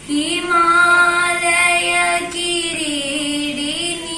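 A girl singing a Sanskrit verse to Bharat Mata alone and unaccompanied, drawing out long, slowly gliding notes.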